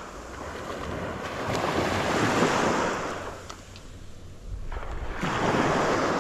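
Sea surf washing up on a beach in two swells, one building over the first few seconds and another near the end, with a lull between.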